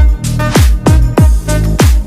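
Electronic background music: a heavy kick drum that drops in pitch on each hit, about every 0.6 seconds, over sustained bass and chords.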